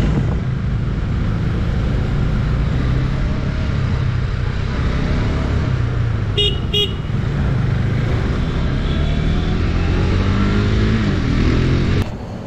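KTM RC 390's single-cylinder engine running steadily as the motorcycle rides through city traffic, with two short horn beeps in quick succession about halfway through. The sound cuts off near the end.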